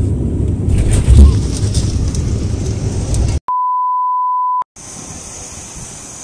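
Turboprop airliner engines heard from inside the cabin during taxi, a loud steady rumble. After about three seconds it cuts off abruptly into a steady test-tone beep of about a second over colour bars. That is followed by a quiet outdoor background.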